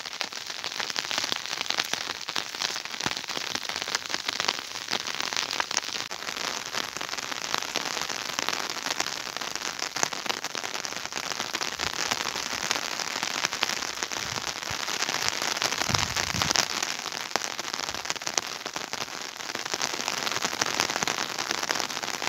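Steady rain pattering, a dense run of fine ticks with no break.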